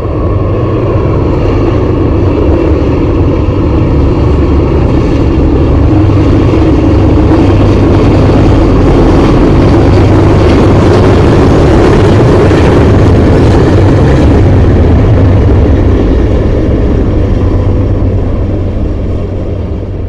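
Diesel locomotives of a Norfolk Southern freight train passing, their engines running loud and steady with a deep hum, then fading near the end as the hopper cars roll by. Heard through a camcorder microphone with poor sound quality.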